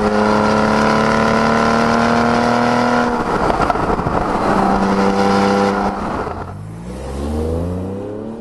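Porsche 911 (991) Carrera flat-six through an aftermarket stainless steel valved exhaust, heard close to the tailpipes on the move: a steady exhaust note creeping up in pitch, a rougher break about three seconds in, then steady again. About six seconds in it changes to the car pulling away with its exhaust valves closed, the note rising in pitch as it accelerates.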